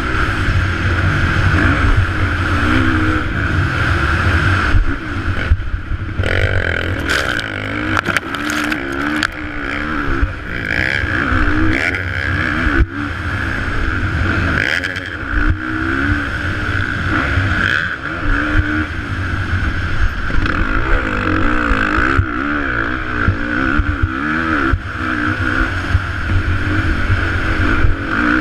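Motocross dirt bike engine heard from on board, revving up and down again and again as the rider opens and shuts the throttle around the track, over a heavy low rush of wind on the microphone. About five to six seconds in the engine note drops away briefly, and a few sharp knocks follow.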